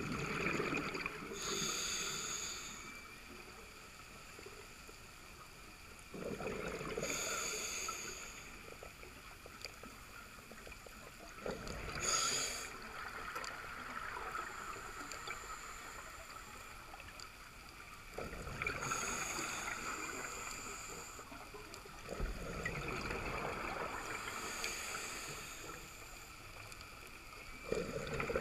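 Scuba diver breathing underwater through a regulator: about five breaths, each a gurgling rush of exhaled bubbles with a short hiss from the regulator, every five to six seconds.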